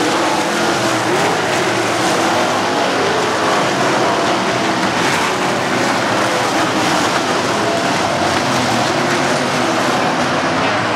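A pack of winged 360 sprint cars racing on a dirt oval, their V8 engines running hard together, loud and continuous, with overlapping engine pitches rising and falling as the cars throttle through the turn.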